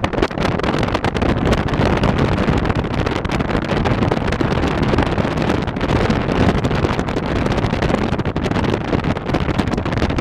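Wind rushing and buffeting through an open car window at road speed, over the car's road noise.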